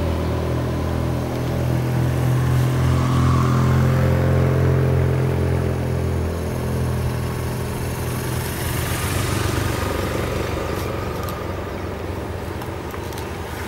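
Large race-escort motorcycles passing close, their engines giving a steady low drone that fades after about six seconds. Near the end a pack of racing bicycles rolls by with scattered sharp clicks.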